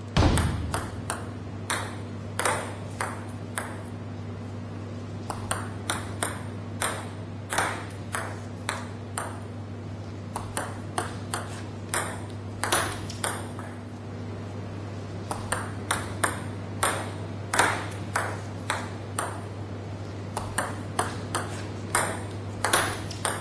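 Table tennis ball clicking off racket and table as short side-backspin serves are played one after another: many sharp, light clicks in quick groups, over a steady low hum.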